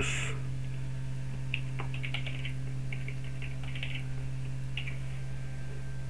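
Typing on a computer keyboard: a scattered run of light key clicks starting about a second and a half in, over a steady low electrical hum.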